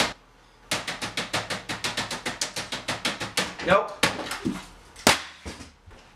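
Fast typing on a laptop keyboard, about eight key clicks a second, stopping about three and a half seconds in. Then a short creak and a few knocks as the laptop lid is shut.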